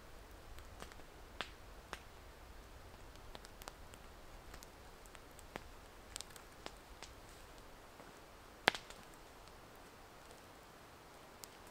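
Wood campfire crackling: scattered sharp pops and snaps at irregular intervals over a faint steady hiss, with one louder pop about two-thirds of the way through.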